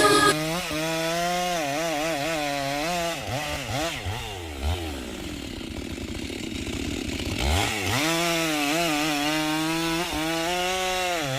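Chainsaw running at high revs while cutting a tree, its pitch wavering. About four seconds in it drops low for a few seconds, then revs back up near the eight-second mark.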